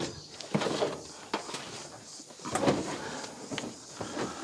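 A few scattered light knocks and clunks of objects being handled, over low background noise.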